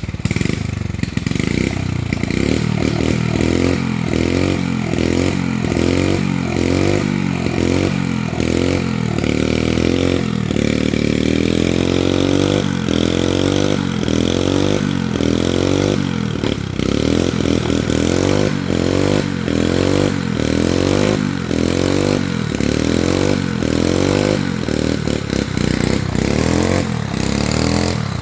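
Motorcycle engine of a homemade rope-pulling winch running under load. Its note dips and recovers in a steady rhythm, a little more than once a second.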